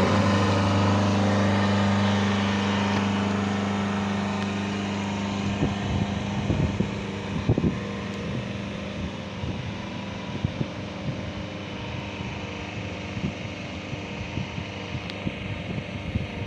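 High-pressure ground water pump for a cleaning drone running with a steady hum, switched on at the press of a button; the hum is strongest for the first few seconds, then sinks under wind noise on the microphone with a few scattered knocks.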